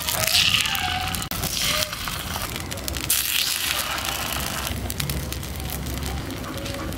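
Rice-flour batter sizzling in the hot oil of a clay shaj mould as it is spooned into the cups, a steady frying hiss with a few faint clicks.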